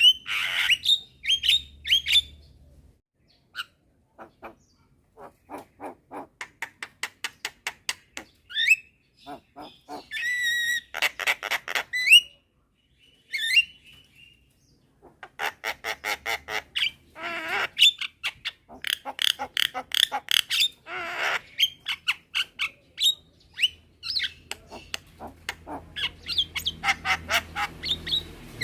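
Javan mynas calling: harsh, rasping squawks mixed with runs of short, evenly spaced notes at about three or four a second, with brief pauses between bouts.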